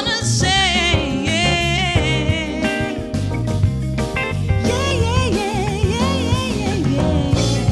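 Soul song with a male singer holding long, wavering notes over a backing band.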